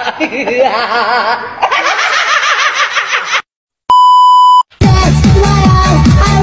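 Music with a high, wavering voice cuts off, and after a short silence a steady test-tone beep of the kind played with TV colour bars sounds for under a second. Then electronic dance music with a heavy repeating beat starts.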